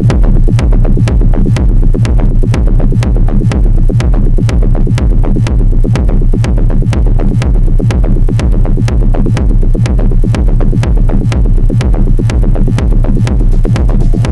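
Electronic music with a fast, steady beat over a heavy bass.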